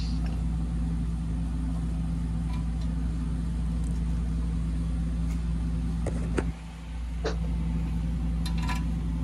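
Steady low machine hum, with a few light clicks and taps from a small screwdriver and a plastic cable connector being handled, about six seconds in and again near the end.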